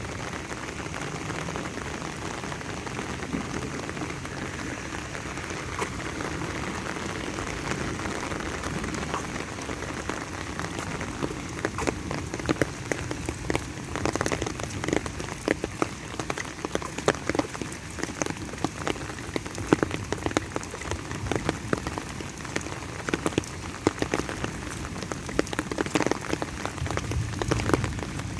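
Steady rain falling, with a continuous hiss of drops. From about halfway through, many louder, sharper individual drop hits stand out over the hiss.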